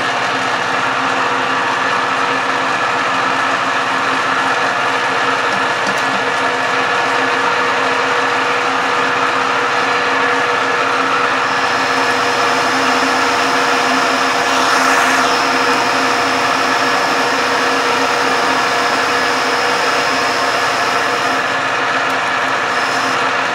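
Metal lathe running under power feed, taking a turning cut along a metal bar: a steady machine drone with several held tones. A thin high whine joins about halfway through and stops shortly before the end.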